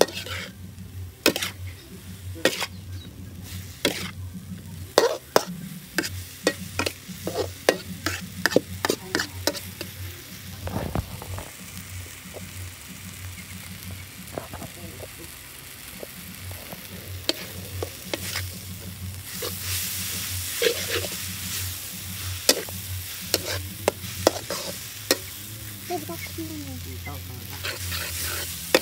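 A metal spatula scraping and clanking against a metal wok as instant noodles and water spinach are stir-fried, over a steady sizzle. The clanks come thick and fast in the first third, thin out, then pick up again; from about twenty seconds in the sizzle grows louder.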